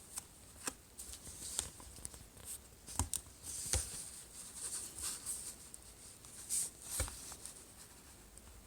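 Plastic card and craft knife scraping and prying under a Samsung Galaxy S4's glass screen as it is lifted off its adhesive: faint scratchy scraping with irregular sharp clicks and ticks.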